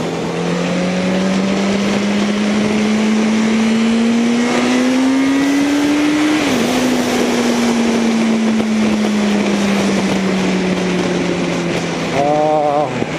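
Motorcycle engine running on the highway, its note rising steadily for about six seconds, dipping briefly, then slowly falling away, under heavy wind and road rush.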